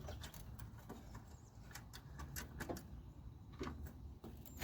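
Faint, scattered small clicks and ticks of a screwdriver backing out the headlamp retaining-ring screws.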